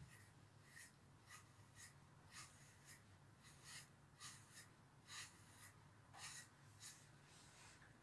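Faint, repeated scratchy strokes of a grooming brush drawn through a long-haired dog's coat, about a dozen short strokes at an uneven pace.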